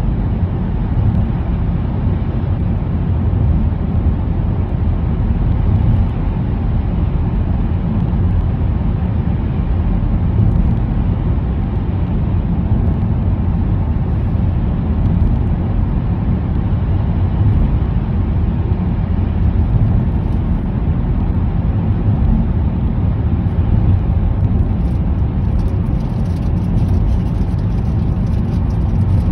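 Steady low rumble of a car's tyre and engine noise, heard from inside the cabin while it drives at constant speed through a road tunnel.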